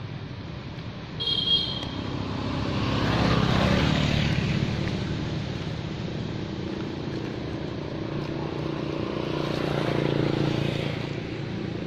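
Motor vehicles passing on a nearby road: the engine noise swells and fades twice, first around three to four seconds in and again near the end. A brief high-pitched toot sounds about a second in.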